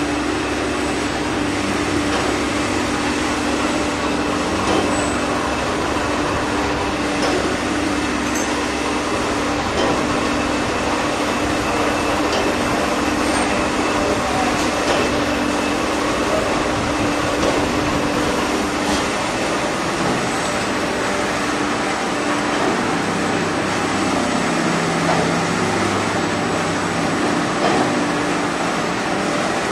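Steady machine-shop noise from a CNC turning lathe running, with a constant hum that drops away about two-thirds of the way through.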